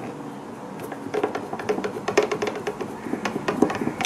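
A screwdriver clicking and scraping against the screws and plastic shell of a hot air gun handpiece as the screws are undone, with a quick irregular run of small clicks starting about a second in.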